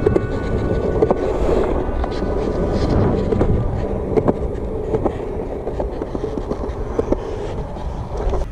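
Skateboard wheels rolling over a concrete bowl: a steady rumble that rises and eases as the board carves the walls, with a few sharp clacks scattered through it.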